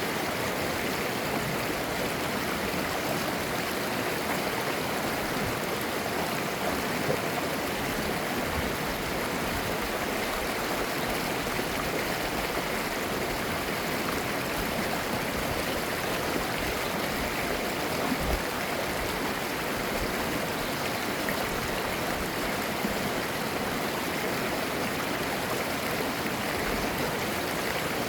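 Mountain stream flowing over rocks: a steady, even rush of water with gurgling.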